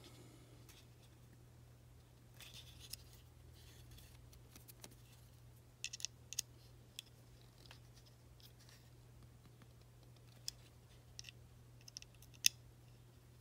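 Small clicks and light scraping of an Allen key turning a steel Allen screw into the front locking block of a Polymer80 SS80 polymer pistol frame as it is tightened, with a few sharper metal ticks.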